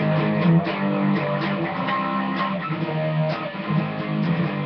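Electric guitar strumming power chords in a rhythm part, with short muted scratch strokes between the held chords.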